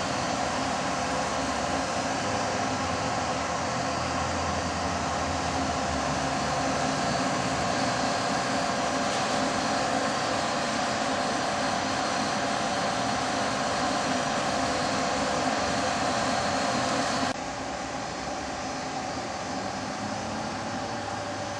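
Router spindle of a home-built CNC milling attachment running steadily, milling walnut, with a steady whine. About three-quarters of the way through, the sound drops suddenly to a lower, steady level.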